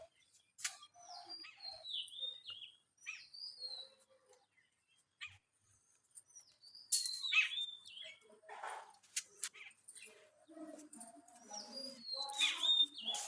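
Birds calling: repeated short whistled calls, each sliding downward in pitch. A quiet pause falls in the middle, followed by a louder flurry of calls about seven seconds in.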